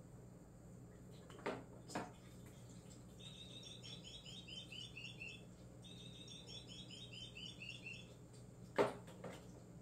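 Two runs of rapid, high, evenly repeated chirps, each about two seconds long. Soft knocks come before them and a louder knock near the end, from a kitten playing with a small toy on a wooden floor.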